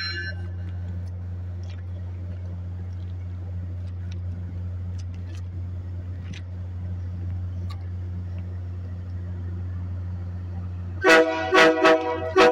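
MBTA commuter rail train approaching with a steady low drone, then its horn sounding several short blasts near the end.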